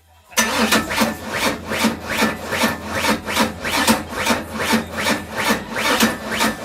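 Ford Mustang engine being cranked over by its starter, slow and labored at about three strokes a second, without catching. The slow cranking is put down to a weak battery or to ignition timing set too far advanced.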